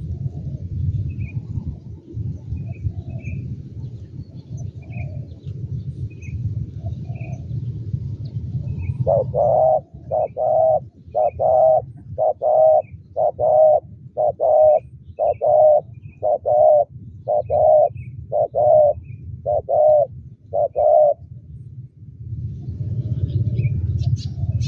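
Spotted dove cooing: a run of about a dozen evenly spaced coos, about one a second, starting a third of the way in and stopping a few seconds before the end. Under it, a steady low rumble and faint, short high chirps repeated every second or so.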